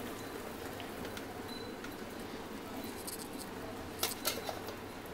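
Hot water from a pot of parboiled potato sticks pouring and draining through a metal mesh strainer into a steel sink, steady throughout. A few short light clicks come near the end.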